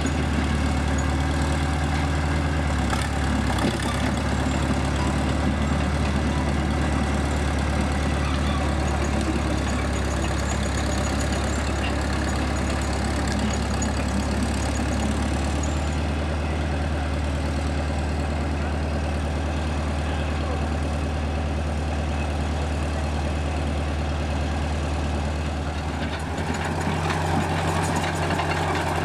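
The engine of a small vintage Caterpillar crawler bulldozer running steadily as the machine drives along, its pitch shifting slightly a few times.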